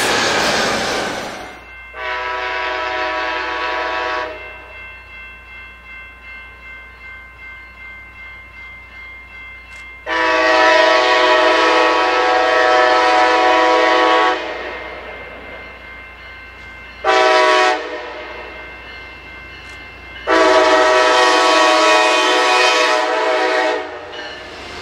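Siemens SC-44 Charger diesel-electric locomotive sounding its multi-note air horn in the grade-crossing pattern: long, long, short, long. Between the blasts, grade-crossing bells ring steadily. The first second or so holds the rumble of a passing train.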